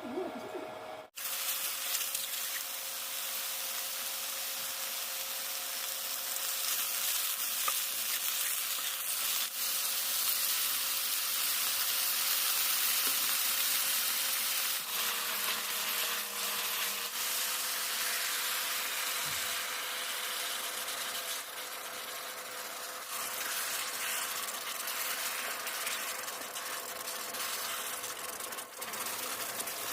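Food sizzling in a hot pan or pot, a steady crackling hiss, with a faint steady hum underneath.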